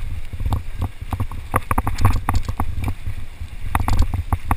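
Mountain bike riding down a rough rock slab: irregular clatter and knocks from the bike over the rock, with wind rumbling on the camera's microphone.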